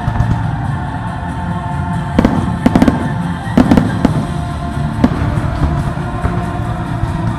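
Aerial firework shells bursting in a quick run of sharp bangs between about two and four seconds in, with one more about five seconds in, over the show's music.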